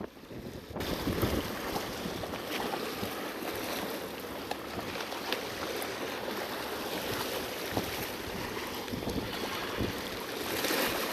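Wind buffeting the microphone over the wash of waves on a rock shore: a steady rushing noise with a few small clicks, after a brief quieter moment at the very start.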